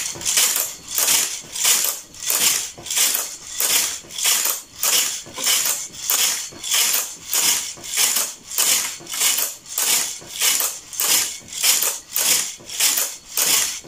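Domestic knitting machine carriage pushed rapidly back and forth along the needle bed, a sliding, rasping stroke with each pass at a steady rate of about two a second, knitting a narrow I-cord on a few needles.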